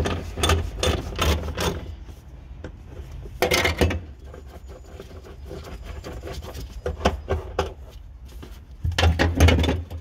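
Ratchet with a 17mm socket undoing a seat belt anchor bolt: short runs of ratchet clicking, with a louder burst of scraping handling noise near the end.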